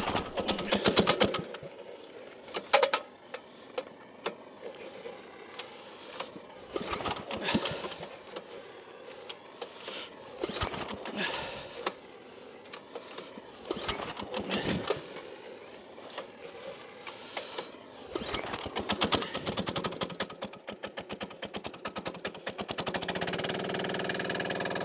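Small single-cylinder air-cooled diesel engine being pull-started from cold: about six pulls, each a short burst of rapid chugging as it cranks and partly fires without catching, with pauses between. About 23 seconds in it catches and settles into steady running.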